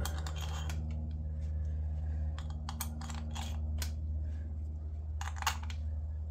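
Light clicks and taps of small parts and hand tools being handled during reassembly, several close together in the middle and a short cluster near the end, over a steady low hum.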